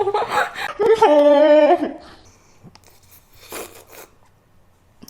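A woman's drawn-out, wavering whining vocal sound, heard twice in the first two seconds. After that come only faint rustling and a soft crunch.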